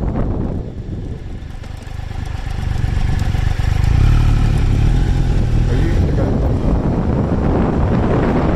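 Triumph Tiger Explorer 1200's three-cylinder engine running on the move, under heavy wind buffeting on the microphone. The wind dies down about half a second in and the engine note comes through, growing louder for a few seconds, then the wind noise rises again over it near the end.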